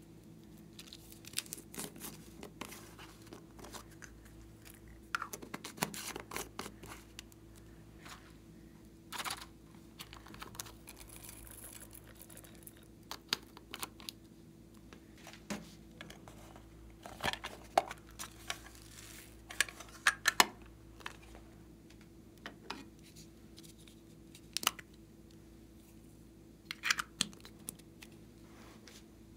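Small plastic containers being handled, opened and tapped out, with glitter and foam beads shaken into glass trays: irregular clicks, taps and brief crinkly rustles, sometimes two or three close together.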